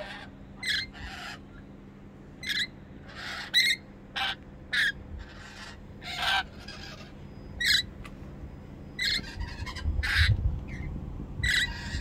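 Rainbow lorikeets screeching: about fifteen short, harsh calls, one every second or so. A low rumble comes in over the last couple of seconds.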